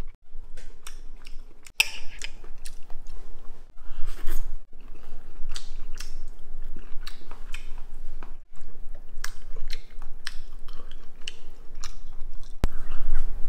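A person chewing a mouthful of veal and mushrooms in cream sauce close to the microphone, with many irregular short wet mouth smacks.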